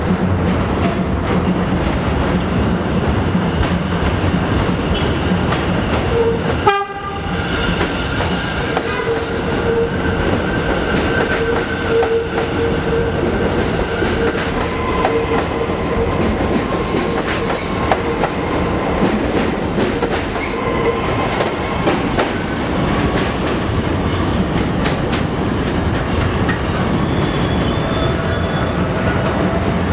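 New York City subway trains running through stations, wheels rumbling over the rails with a clickety-clack, a sudden brief break in the sound, and then a steady tone for several seconds.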